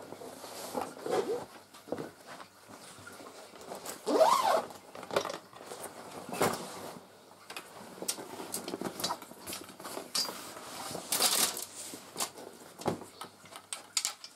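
Handling noise: fabric rustling with scattered clicks, taps and knocks as a fishing rod is fetched and handled, with a brief squeak about four seconds in.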